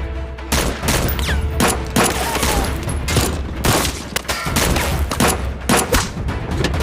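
Gunfire exchange: many shots fired in quick, irregular succession, over a steady low rumble.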